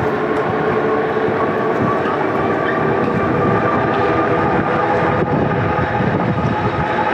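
Electric bike motor whining in several tones that creep slowly up in pitch as the bike gains speed under the highest pedal-assist level, over steady wind and fat-tire road noise.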